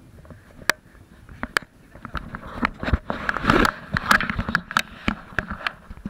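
Footsteps crunching on gravel, with irregular sharp clicks and knocks, busiest in the middle few seconds.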